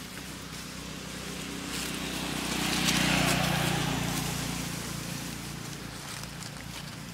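A motor vehicle passing by: its engine sound swells to a peak about three seconds in, then slowly fades.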